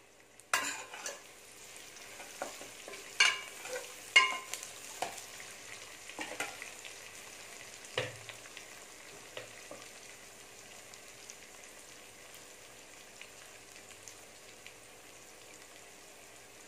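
Shallots, garlic, green chillies and curry leaves sizzling in hot oil in a metal pot. A steel ladle clicks and scrapes against the pot as they are stirred through the first half. After that there is a steadier, lighter sizzle.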